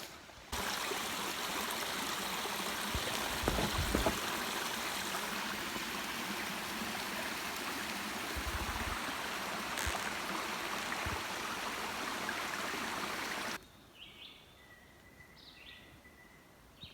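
Steady rush of running water, like a stream, with two brief low bumps. Near the end it cuts off abruptly to quiet, where a bird chirps a few times.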